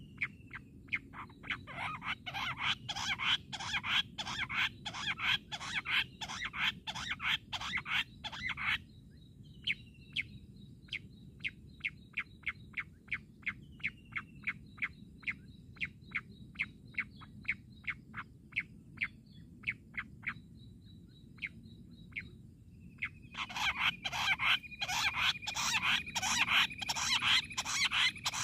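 Jungle bush quail calling: a fast run of short, sharp repeated notes, about four a second, slowing to single spaced notes with a few faint rising whistles, then a dense fast run again near the end.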